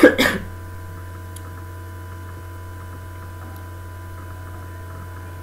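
Steady low electrical mains hum. Right at the start there are two brief loud noises about a quarter second apart.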